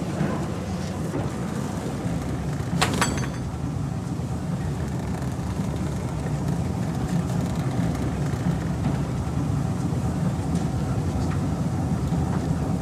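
Steady low rumble of a moving train heard from inside a passenger carriage, with a brief high-pitched squeal about three seconds in.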